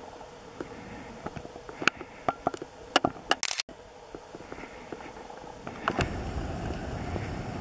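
Handling noise from a handheld camcorder: scattered clicks and knocks, a short hiss about three and a half seconds in that cuts off suddenly, then a louder rumble from about six seconds as the shot shakes and zooms.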